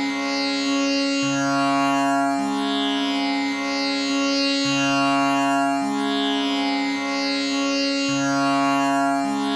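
Tanpura drone tuned to C sharp, its strings plucked in a steady repeating cycle that comes round about every four and a half seconds, the notes overlapping into a continuous buzzing drone with sweeping overtones.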